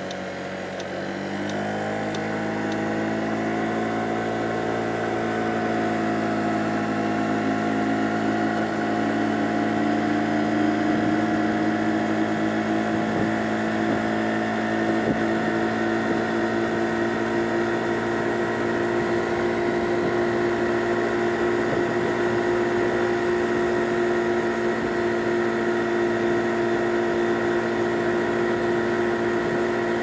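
Honda Giorno 49cc scooter engine, a small single-cylinder four-stroke, rising in pitch over the first few seconds as it picks up speed, then running steadily at cruising speed.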